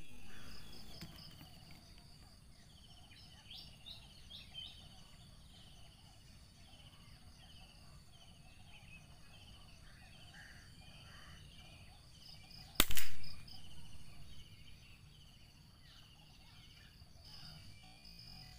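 Small birds calling in a repeated series of short, falling chirps over a faint low rumble, then, about 13 seconds in, a single sharp crack of a scoped rifle being fired.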